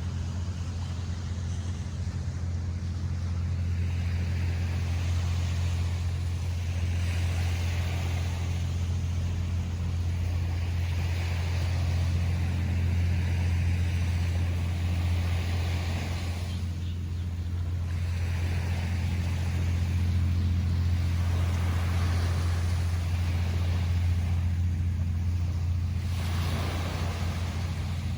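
Ocean waves breaking and washing up on a beach, the surf hiss swelling and fading every few seconds over a steady low rumble.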